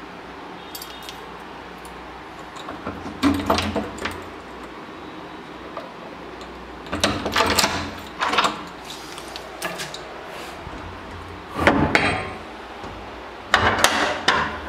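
Keys jangling as a padlock is unlocked and lifted off a brass sliding door bolt, then the bolt is worked: short metallic rattles and clacks in four separate bursts.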